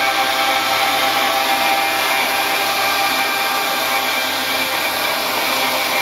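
CNC router spindle milling a bamboo panel, with a vacuum hose sucking away the chips beside the cutter: a loud, steady mix of spindle whine, cutting noise and rushing air.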